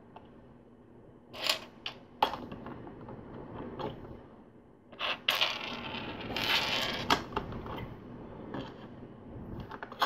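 Plastic LEGO bricks clicking and clattering as small pieces are picked up and pressed onto a model, with a few sharp separate clicks and a longer rattle of loose bricks being sorted through about halfway in.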